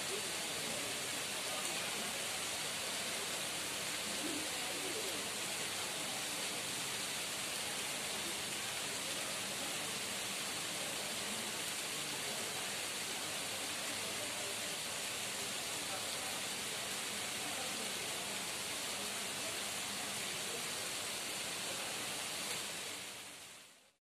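A steady, even hiss of background noise with no distinct events, fading out near the end.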